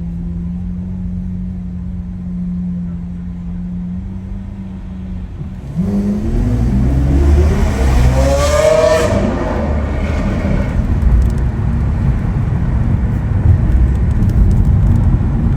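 Lamborghini Aventador SV's V12 with a Capristo exhaust accelerating hard. A steady low hum runs for about five seconds, then the engine suddenly gets loud and its pitch climbs steeply for about three seconds before dropping away into a loud, rough rumble.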